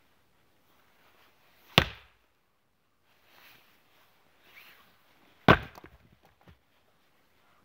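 Two heavy axe blows on a firewood round, about four seconds apart, the second the louder, struck with the round still stuck on the axe head and slammed down onto the chopping block. A few light knocks of wood follow the second blow.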